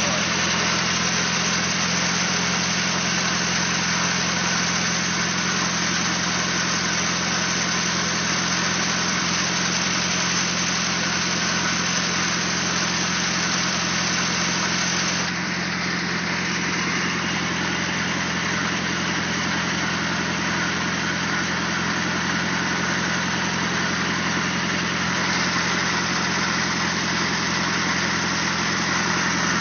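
Willys CJ2A Jeep's four-cylinder Go-Devil flathead engine idling steadily, freshly tuned up.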